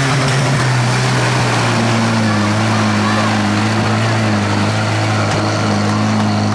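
Tractor engine running hard at steady high revs, its pitch holding almost level with a slight waver.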